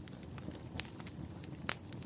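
Fireplace fire crackling: a steady low rush of flames with two sharp pops, one near the middle and one near the end.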